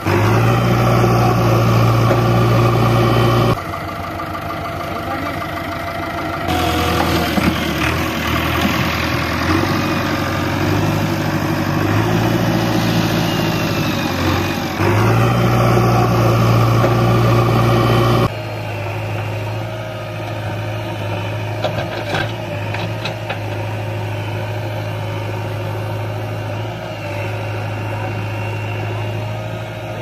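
JCB 3DX backhoe loader's diesel engine running under load in mud, in loud spells that rise and drop off abruptly, with the pitch shifting in the middle; in the last third it settles to a steadier, quieter run.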